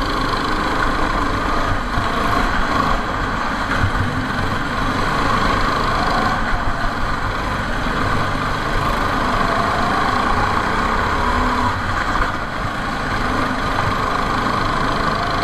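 Small go-kart engines running on track, a steady buzzing note that rises and falls slightly as the karts accelerate and slow through the corners.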